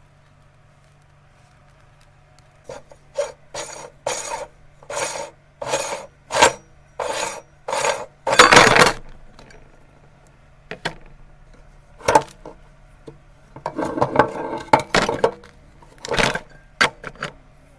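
Meat grinder crushing Oreo cookies: a series of short crunching, rasping bursts, loudest about eight and a half seconds in, with a few more toward the end.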